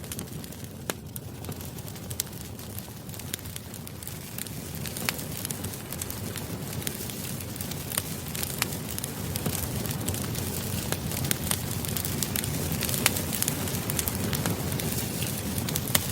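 Campfire burning: a steady low rumble of flames with frequent sharp crackles and pops, growing a little louder after about five seconds.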